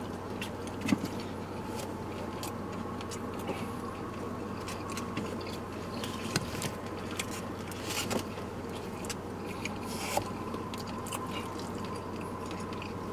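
People eating takeout rice with plastic forks: chewing, with many small scattered clicks and scrapes of forks against the food containers, over a steady low hum.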